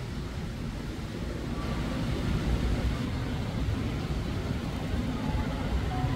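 Steady low rumbling background noise that grows a little louder about two seconds in, with a few faint brief tones above it.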